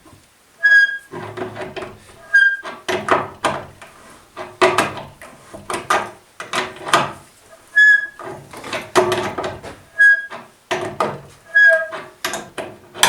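Repeated blows of a hand tool on timber, about one or two a second, some of them ringing with a clear metallic tone.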